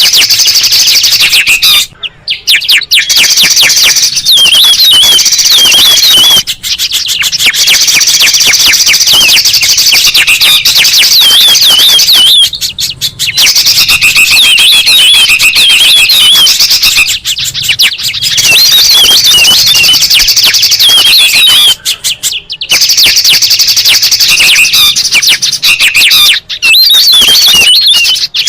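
Bird-lure track: a dense, loud mix of several songbirds' chirps, trills and quick warbling calls layered over one another, with brief breaks every four to five seconds.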